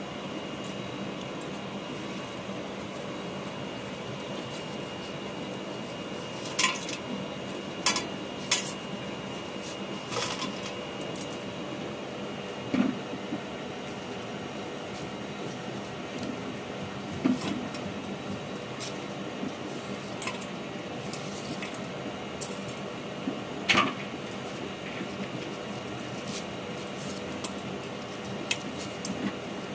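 Thin metal skewers clinking against a stainless steel bowl as pieces of grilled mutton sekuwa are pushed off them: about ten sharp, separate clinks spread through the middle and later part, over a steady hum.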